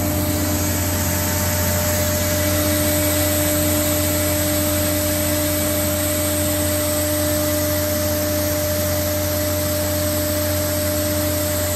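DMG Mori DMU 125 monoBLOCK's HSK-63 spindle free-running at 18,000 RPM with no feed and no cut. It makes a steady whine over a low hum and an even hiss of air.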